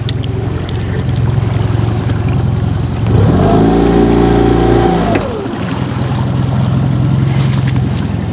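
Boat motor idling with a steady low hum. About three seconds in it is revved up, held for about two seconds, then throttled back down to idle.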